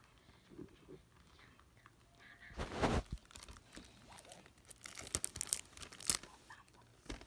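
Plastic shrink-wrap being picked at and torn off a disc case, crinkling. A noisy rip comes about two and a half seconds in, then a run of sharp crinkles a couple of seconds later, and one more near the end.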